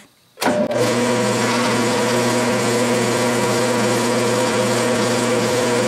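Unimat DB200 micro lathe switched on about half a second in, then running steadily with a constant hum as its spindle turns the chucked steel bar against a 1/4-inch pilot drill.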